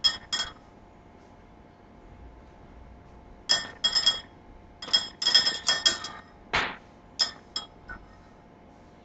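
A metal hand grater clinking against the rim of a glass mixing bowl as a processed cheese cube is grated into it. Short, ringing clinks come in bunches, with a quiet stretch of about three seconds near the start and one brief duller scrape about two-thirds of the way through.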